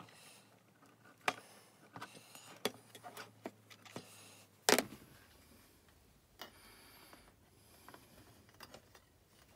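Scattered light clicks and knocks as a plastic security-camera housing and the camera mounting plate inside it are handled and adjusted, with one sharper knock about halfway through.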